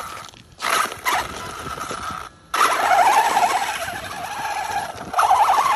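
Electric RC monster truck driving on gravel: the motor whines in throttle bursts, starting and stopping suddenly. After a short pause it runs on hard with the pitch wavering, tyres scrabbling over loose stones.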